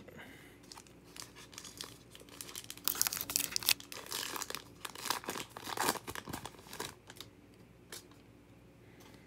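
A Topps Heritage baseball card pack wrapper being torn open and crinkled by hand, with a stretch of loud crackling from about three to seven seconds in.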